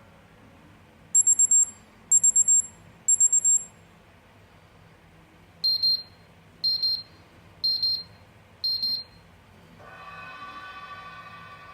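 Built-in alert tones from an HTC Desire 601 smartphone, played through its speaker: three short bursts of rapid, high-pitched beeps, then four bursts of paired, lower beeps. Near the end a different, sustained ringing tone begins.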